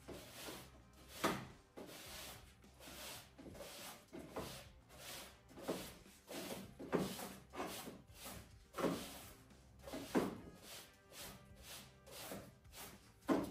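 A broom sweeping a wooden floor in irregular strokes, with a plastic dustpan bumping and scraping. A few sharper knocks stand out, one about a second in and one at the very end.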